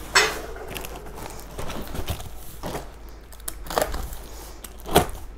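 Packing material crinkling and rustling as dinnerware is pulled out of its box, with a few sharp knocks from the plates being handled, the loudest shortly after the start, about four seconds in and near the end.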